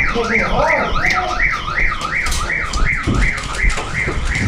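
Electronic alarm warbling up and down about three times a second. From about halfway through, rapid sharp clicks of airsoft gunfire cut across it.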